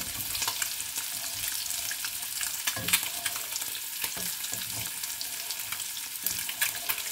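Wooden spatula stirring a thin potato curry in a metal kadai, with a few short knocks and scrapes against the pan, over a steady frying sizzle.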